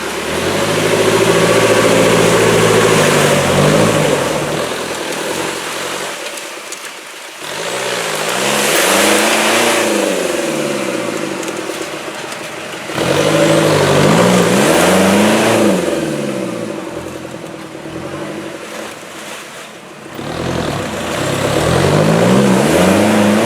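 Off-road 4x4's engine revving hard in four surges while the vehicle works at a climb described as like driving up a brick wall. Within each surge the pitch rises and falls several times, with the engine dropping back toward idle between surges.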